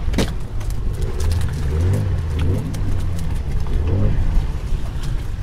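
Steady low rumble of a fishing boat at sea, with wind buffeting the microphone, faint voices, and one sharp knock just after the start.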